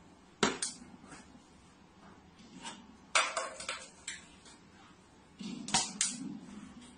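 A few sharp knocks and clinks of hard objects on a tabletop, about four in all. The last pair comes as a plastic water bottle is set down on the table.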